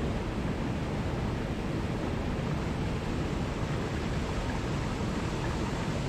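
Small waterfall cascading over rocks into a pool: a deep, steady rush of falling water.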